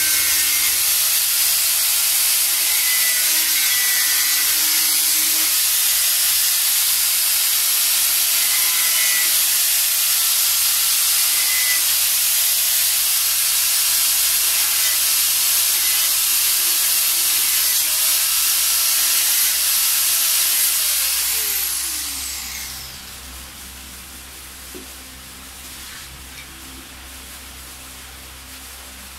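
Handheld power tool cutting excess fiberglass from the edge of a helmet shell: a steady motor whine that wavers slightly as it cuts, under a loud hiss. About three-quarters of the way through it is switched off and its whine falls in pitch as it spins down.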